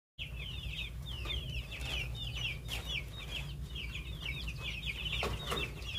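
A flock of chickens cheeping without pause: many short, high calls overlapping, over a low steady hum. Two brief knocks about five seconds in.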